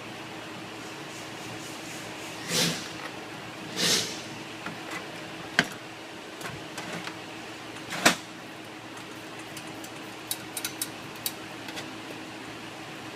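Workshop handling noises from tools and parts: two short scrapes, then two sharp clicks, and a quick run of small clinks near the end, over a steady hum.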